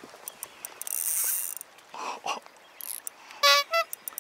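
Spinning reel's drag clicking in irregular runs as a big black sea bream pulls line. A brief hiss about a second in, and a short, loud two-part pitched cry about three and a half seconds in.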